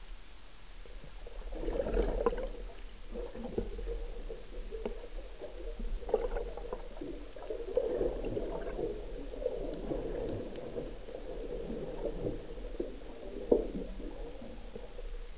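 Muffled underwater sound through a camera housing: irregular gurgling and sloshing of water and bubbles, with a few sharper knocks, the loudest near the end.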